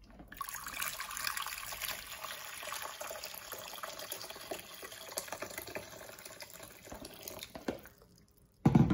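Hot water pouring steadily from an electric kettle into an empty non-stick pot. The pour stops about seven and a half seconds in, followed by a brief loud clunk just before the end.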